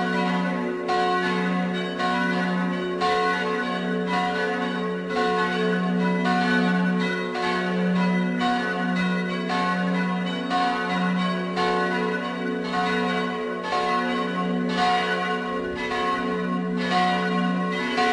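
Full peal of church bells: all the swinging bells in the tower ringing together, their strokes overlapping without pause over a deep hum that swells and fades as the bells swing.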